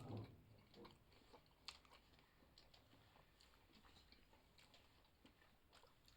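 Faint close-up chewing and biting of hot pizza: soft, irregular mouth clicks and small crunches, with a slightly louder bite at the start and a sharp click a little under two seconds in.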